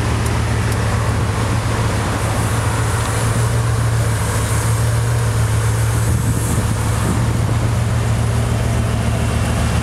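Bugatti Veyron Grand Sport Vitesse's quad-turbo W16 engine running steadily at low revs: a deep, even hum that holds without revving.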